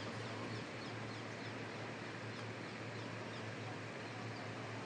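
Faint outdoor ambience: a steady hiss and low hum, with birds chirping faintly and repeatedly.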